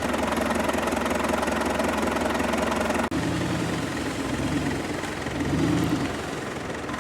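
Off-road 4x4 vehicle engine running. About three seconds in the sound breaks off for an instant, and after that it rises and falls twice.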